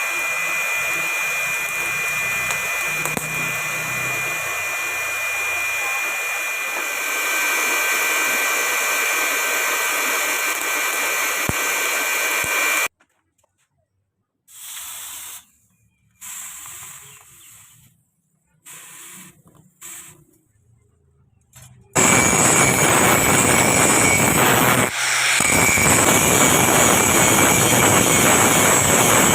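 Power tool grinding steel, in three cut-together stretches: a long steady run with a thin whine, a few short bursts, then a louder, harsher run with a high whine.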